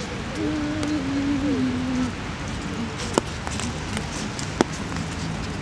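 Steady rain hiss, with a few sharp taps about three and four and a half seconds in. A short low hum sounds in the first two seconds.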